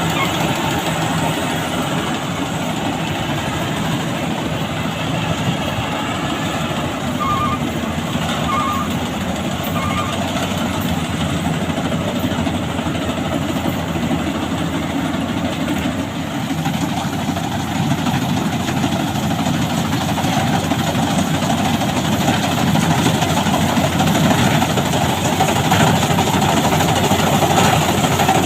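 Rice combine harvester's engine and machinery running steadily, getting a little louder in the second half, with a few short beeps about seven to ten seconds in.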